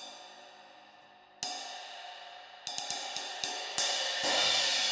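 Round Sound Custom Thin High 20-inch ride cymbal (1740 g) struck with a wooden drumstick: a single stroke rings out, a harder one comes about a second and a half in, then a quick run of about six taps. A heavier hit near the end opens into a loud, spreading shimmer of wash.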